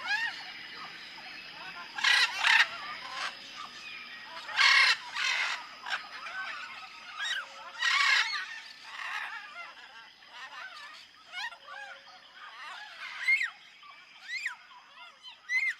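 Jungle ambience: many birds chirping and whistling in short gliding calls, with loud harsh squawks breaking in three times, about two, five and eight seconds in, over a steady high insect drone.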